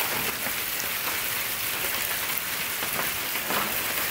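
Sleet falling on a metal carport roof: a steady, even hiss.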